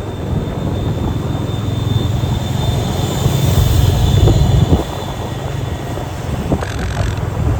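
Motorcycle running on the move, with low engine rumble and wind rushing over the microphone; it grows louder until about halfway, then drops back.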